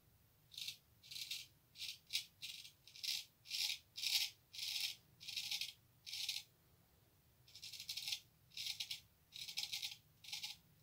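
Freshly honed 8/8 hollow-ground straight razor scraping through three to four days' stubble on a lathered face: about fifteen short rasping strokes, with a pause of about a second past the middle.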